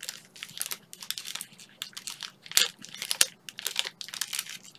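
Plastic snack wrapper crinkling as it is handled, in quick irregular crackles.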